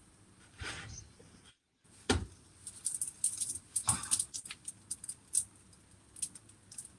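Light knocks and a run of sharp clicks from a frying pan on a gas hob as a pita bread is turned and pressed by hand in it. There is a thump about two seconds in and another about four seconds in.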